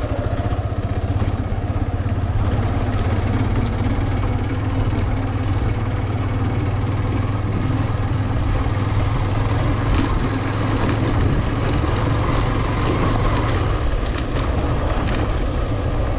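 Motorcycle engine running steadily at low road speed over a rough dirt road, with a few faint clicks.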